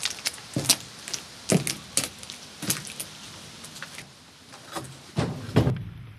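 Irregular clicks, knocks and light rattles of a person clambering out through a hatch and stepping onto dry ground, with a heavier knock near the end.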